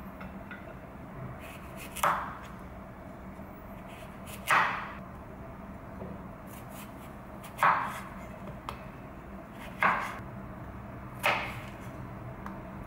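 Kitchen knife chopping through a cucumber onto a wooden cutting board: five sharp chops, a couple of seconds apart, with a few light taps between them.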